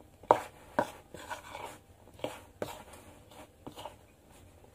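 A spoon knocking and scraping against the inside of a metal mixing bowl while thick corn fritter batter is stirred, giving irregular short knocks about two a second.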